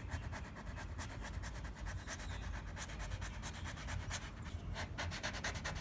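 Tape-wrapped squeegee rubbing in quick, repeated strokes over the transfer tape of a vinyl decal on car window glass.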